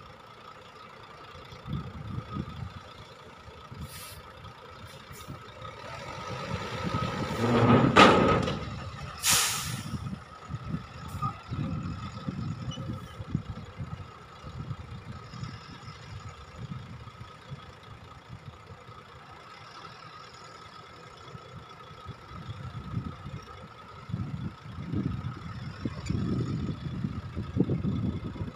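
Diesel dump truck running with its bed raised, a low uneven rumble under a steady thin whine. The engine rises to a loud peak about eight seconds in, followed about a second later by a short sharp hiss of air release.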